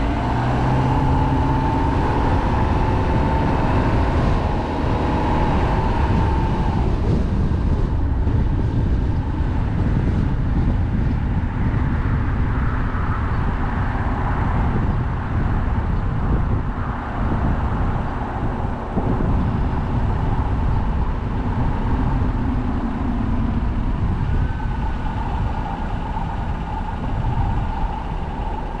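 Car driving on the road: steady rumble of engine and tyre noise, with a faint whining tone that rises slightly in the first few seconds.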